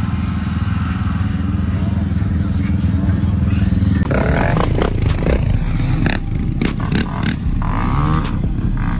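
ATV engines running hard and steady. About four seconds in the sound changes to a sport quad revving and pulling away, its rear tyres spinning on grass and dirt, with clattering and voices around it.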